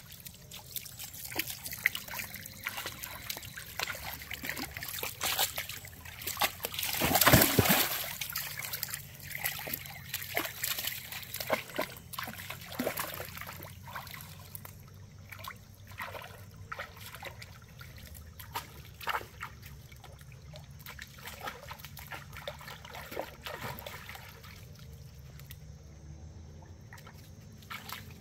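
Shallow creek water trickling over rocks while dogs wade and splash through it, with frequent small splashes and one louder burst of noise about a quarter of the way in.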